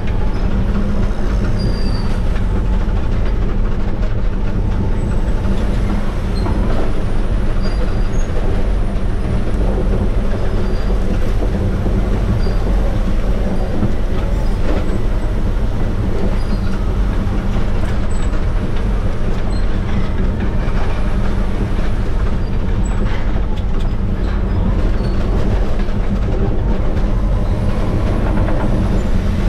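Caterpillar D6R crawler dozer's C9 diesel engine running steadily under load, with scattered knocks and clanks from the machine working.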